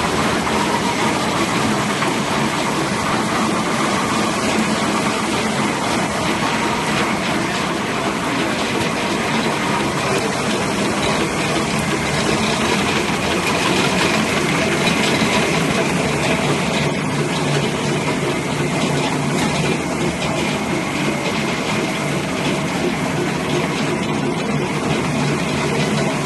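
Hengxin double-output napkin tissue making machine running with its main motor on: a loud, steady mechanical din that holds even throughout.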